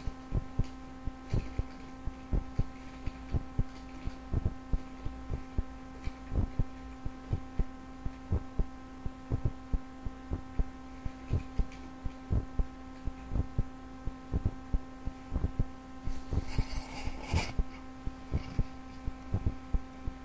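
Computer keyboard being typed on: irregular keystrokes, several a second, over a steady electrical hum.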